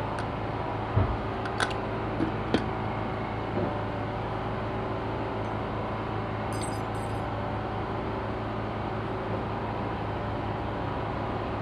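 A steady mechanical hum, with a few light clicks and knocks in the first three seconds.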